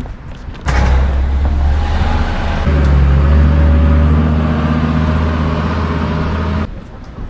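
A motor vehicle's engine running loud and close, with a steady low hum; it starts abruptly about a second in and cuts off suddenly near the end.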